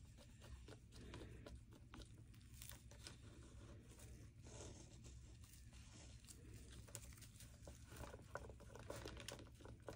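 Near silence, with faint scattered rustles and small clicks of handling.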